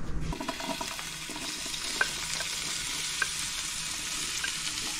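Chopped vegetables sizzling in hot olive oil as they are sautéed and stirred: a steady frying hiss, with a couple of sharp clicks about two and three seconds in.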